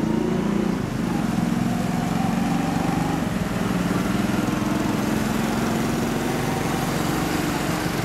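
Street traffic: a vehicle engine running steadily close by, its pitch drifting slightly.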